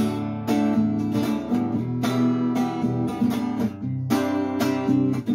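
Acoustic guitar strummed in a steady rhythm, chords changing every second or two, with no singing.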